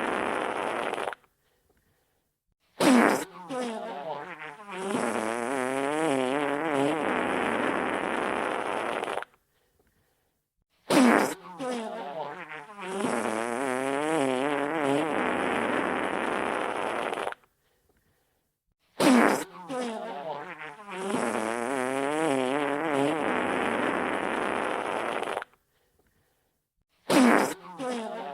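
Wet fart sound effect played as a loop. Each round starts sharply, wavers up and down in pitch, then runs on steadily for several seconds before stopping dead; after about a second and a half of silence the next round begins, four starts in all, roughly every eight seconds.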